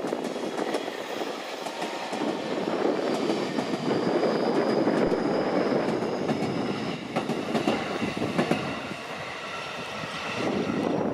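JR Kyushu 813 and 811 series electric train cars rolling close past, a steady rumble of wheels on rail with a faint high squeal and a quick run of clicks over rail joints. The noise eases, then swells again near the end as another train approaches.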